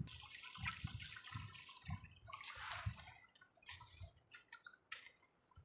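Faint water trickling and dripping, in small irregular splashes rather than a steady rush.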